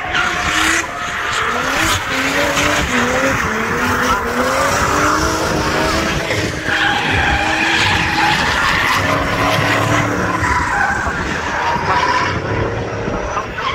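Drift car sliding through a corner, its engine revving hard, rising and falling in repeated surges, while the tyres squeal as the wheels spin and slide sideways.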